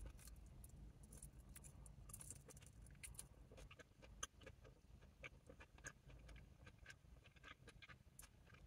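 Faint close-up chewing of a crispy chicken wing: scattered small crunches and wet mouth clicks.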